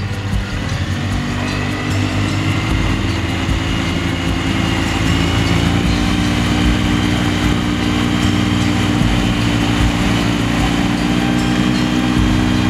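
Yamaha 9.9 hp tiller outboard motor pushing an inflatable boat under way. It speeds up over the first few seconds, then runs steadily at cruising revs.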